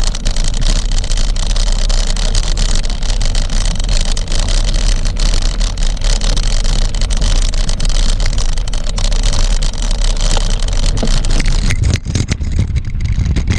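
Wind buffeting an action-camera microphone while mountain biking, a loud steady rumble with many small clicks and rattles of the bike over rough ground. The hiss thins out about twelve seconds in, leaving mostly the low rumble.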